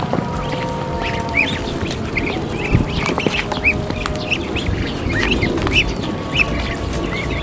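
A flock of young Muscovy ducks peeping in short high chirps, several a second, while they feed together from a tray of duckweed, with scattered sharp clicks.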